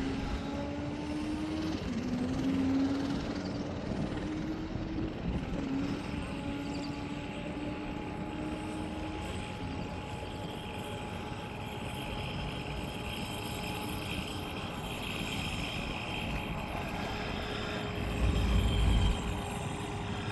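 Race car's engine heard far off, accelerating hard down the runway during a top-speed run. Its pitch climbs, drops twice at upshifts about two and five seconds in, and the car fades away into the distance. A short low rumble comes near the end.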